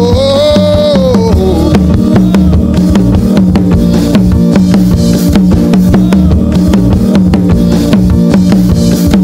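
Worship band music: a steady drum-kit beat with bass drum under sustained chords, a held note falling away in the first two seconds.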